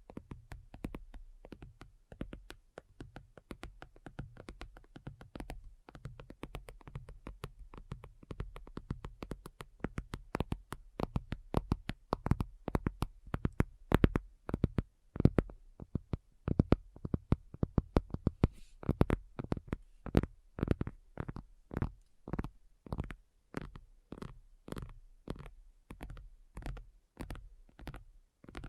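Fingernails tapping on a hard surface: a quick, irregular stream of clicks that becomes louder and more spaced out from about ten seconds in.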